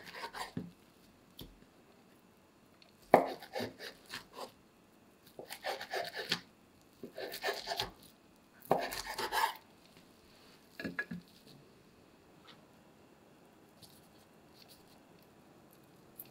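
Chef's knife slicing a thin egg omelette on a wooden cutting board, the blade knocking the board in short runs of quick cuts. There are about six runs, and the cutting stops about 11 seconds in.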